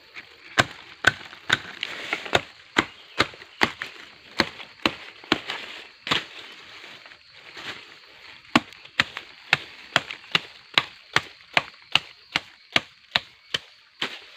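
Gombong bamboo being chopped with a blade: a steady series of sharp wooden chops, about two a second, with a brief pause around the middle.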